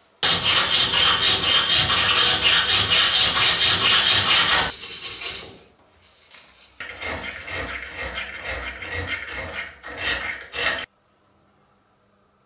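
A steel hand file rasping on metal in quick repeated strokes, dressing a brazed bicycle braze-on part. There are two runs of filing with a short pause between them, and the second run cuts off abruptly.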